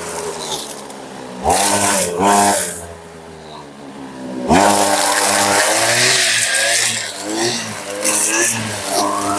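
A two-stroke brushcutter with a chainsaw-chain trimmer head cutting tall grass, its engine revving up and down with the throttle. It drops back to a low idle about three seconds in and revs up hard again about a second and a half later.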